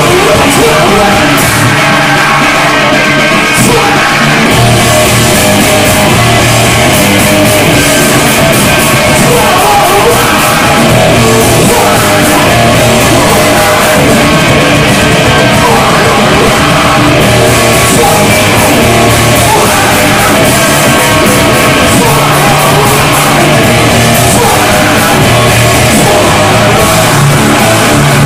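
Live heavy rock band playing loud: distorted electric guitars and a drum kit, with a singer shouting and singing into the microphone.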